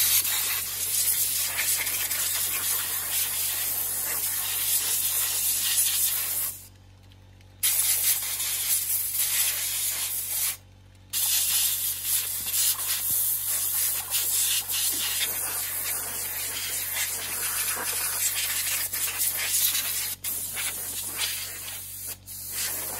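Compressed-air blow gun on a compressor hose hissing in long, loud blasts into an open PC case, stopping twice briefly, about seven and eleven seconds in.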